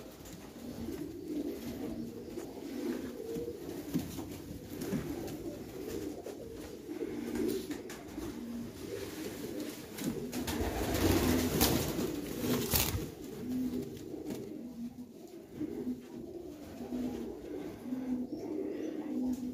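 Caged double-crested pigeons cooing, with short low coos repeating over and over. A louder stretch of rustling and clicking comes about eleven to thirteen seconds in, as birds move about in the wire cage.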